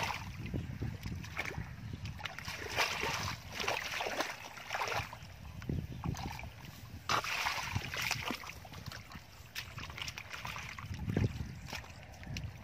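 Shallow muddy water sloshing and splashing in irregular bursts as a plastic basket is swept through it and bare feet wade in the mud.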